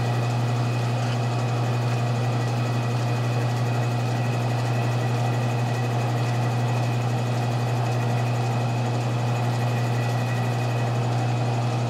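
Metal lathe running at a steady pace, a low hum with a faint high whine, while its cutting tool takes a slow chamfer cut inside the muzzle of a rifle barrel.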